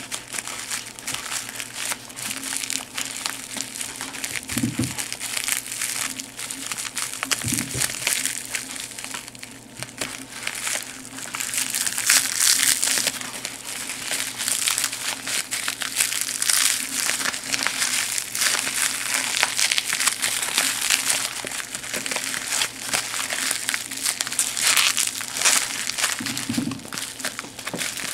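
Plastic bubble-wrap packet and its tape being crinkled and pulled apart by hand, a continuous crackling rustle that grows louder a little before halfway and again near the end, with a few soft low thumps.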